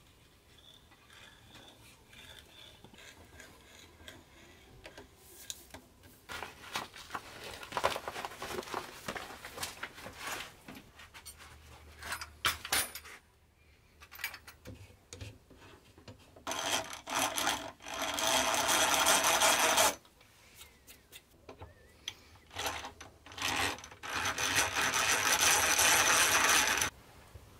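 Hand-cranked egg-beater drill boring into cherry wood: two steady bouts of drilling, about three seconds each, the second stopping shortly before the end. Before them come lighter scraping and metal clinks of hand tools.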